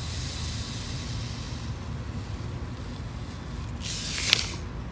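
Fine decorative sand being poured and trickling over small rocks in a planter, a soft hiss that swells briefly about four seconds in, over a steady low hum.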